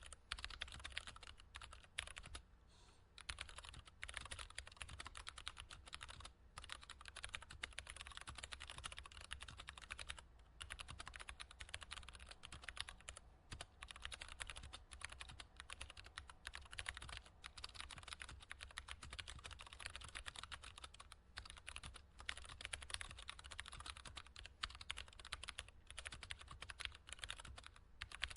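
Continuous typing on a computer keyboard: a quick, irregular run of key clicks and taps, broken by a few short pauses.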